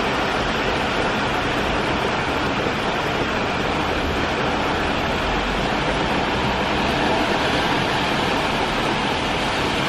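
Heavy rain pouring steadily onto a wet street, a loud, even hiss of a downpour.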